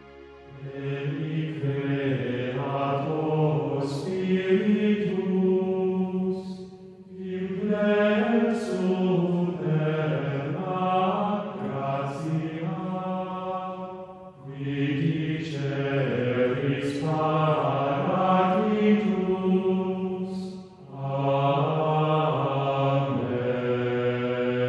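Slow chanted singing: a voice holding long sung notes in four phrases of several seconds each, with short breaks between them.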